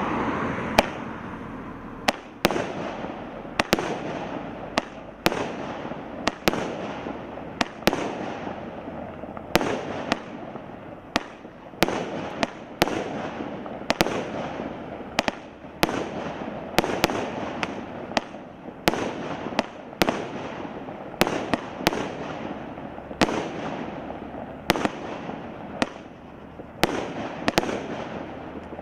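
Hallmark Fireworks 'Sting in the Tail' firework going off: a continuous hiss of burning effects, broken by sharp bangs about once a second throughout.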